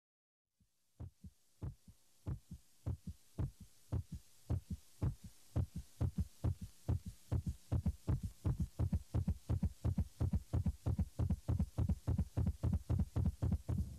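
Heartbeat-like low thumps on the soundtrack, starting slow and speeding up steadily to about five beats a second, over a faint rising hiss.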